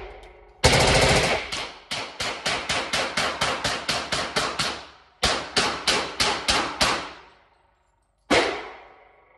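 A 5.56 M4-style rifle firing rapid strings of shots in an indoor range bay, each crack with an echoing tail: a dense burst, then a long string of about thirteen shots at roughly four to five a second, a short break, about seven more, and one single shot near the end.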